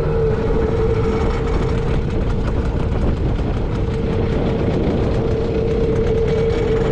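Small boat's outboard motor idling steadily: a low rumble with a constant whine.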